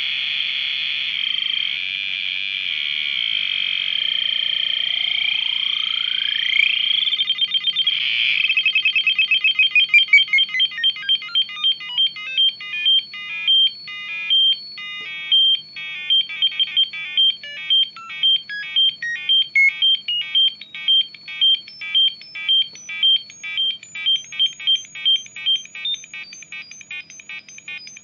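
Arduino Uno four-step square-wave sequencer playing high, buzzy 8-bit tones. It starts as a steady drone, and one pitch sweeps upward about five seconds in. Then comes a rapid stream of short beeps that slows within a few seconds to a repeating step pattern of two or three notes a second.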